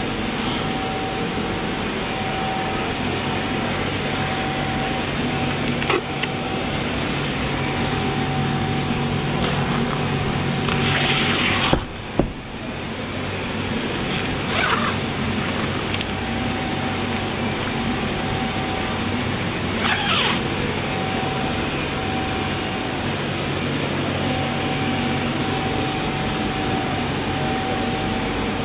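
Electric air blower running steadily, the fan that keeps an inflatable spray booth inflated, with a constant whine over its hum. A few short rustles come through partway in.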